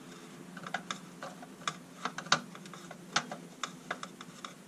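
Irregular sharp clicks and taps of a screwdriver working tight screws out from deep inside a plastic lantern housing.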